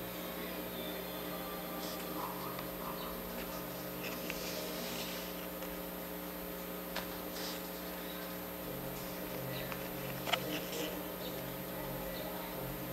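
Steady electrical hum, with a few faint clicks and rustles of paper trading cards being handled, the sharpest about ten seconds in.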